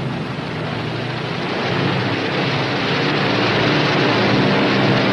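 A P-61 Black Widow's twin Pratt & Whitney R-2800 radial engines are running during the landing roll after touchdown. It is a steady, noisy engine sound with a low hum, and it grows a little louder about two seconds in.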